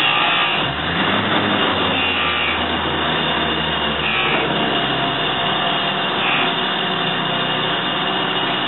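DoAll 6" x 18" surface grinder running, a steady mechanical whine with a low hum that comes in about a second in and fades out around halfway.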